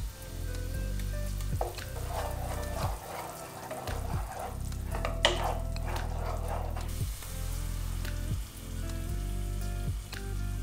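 Pan drippings sizzling as Dijon mustard is stirred in, with one sharp tap about halfway through. Background music with low sustained bass notes plays underneath.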